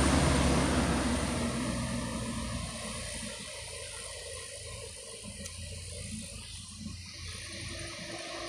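Diesel engine of a laden light cargo truck pulling away up a hill road, its sound fading steadily over the first few seconds and leaving only a faint steady background of distant traffic.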